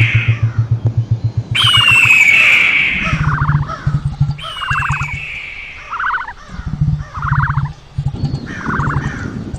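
Imagined microraptor call made as a bird-like sound effect. Two loud, harsh screeches falling in pitch, one about a second and a half in and one about four and a half seconds in, each lasting about a second. Between and after them come shorter trilled chirps about once a second over a low, fast rattling buzz.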